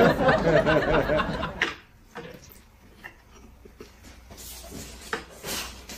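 A woman chuckling to herself with her mouth closed for about a second and a half, then a few faint light clicks and taps.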